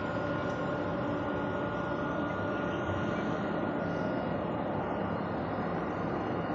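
Steady mechanical drone of running machinery, with a few held tones over a broad hum and no change in level.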